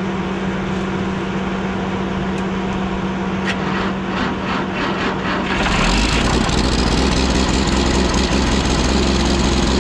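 Diesel engine of an irrigation system being cranked by its starter for about five seconds, then catching and settling into a steady run, starting on its own battery without needing a jump.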